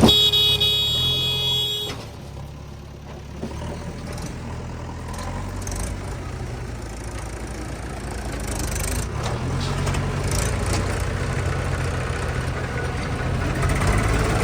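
Diesel engine of a backhoe loader or tractor running steadily, growing a little louder in the second half. A steady high pitched tone sounds over it for the first two seconds, then cuts off.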